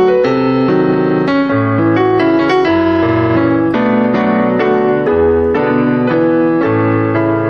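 Piano playing a melody over chords and a bass line, the notes changing every fraction of a second, easing off slightly near the end.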